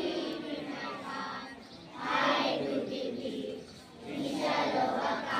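A group of children singing together in unison, in long sustained phrases.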